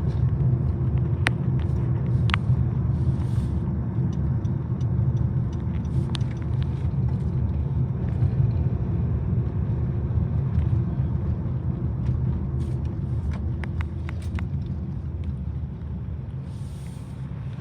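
Train passing close by: a steady low rumble of wheels on rail, with scattered sharp clicks throughout, easing slightly over the last few seconds.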